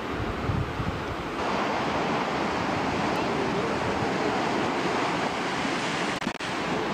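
Ocean surf breaking and washing over a rocky shore, a steady rushing noise, with wind on the microphone.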